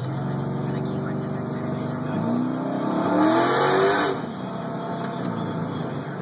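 Twin-turbocharged Mustang engine with 12:1 compression, heard from inside the cabin, pulling hard under acceleration. Its note climbs in pitch and a loud rushing hiss builds over it, then both cut off sharply about four seconds in as the revs drop for an upshift, and the engine pulls on at a lower pitch.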